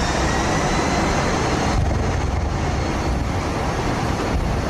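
Boeing 767-200 jet engines at takeoff power, heard inside the cockpit during the early takeoff roll as a steady loud roar over a deep rumble. A faint high engine whine fades out about two seconds in.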